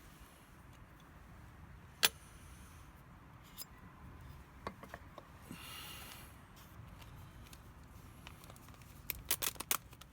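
Scattered sharp clicks and taps: a loud one about two seconds in, a brief hiss around six seconds, and a quick run of four or five clicks near the end.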